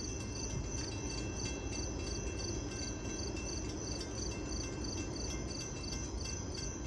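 Crickets chirping in a steady rhythm, about three high chirps a second, over a low steady rumble.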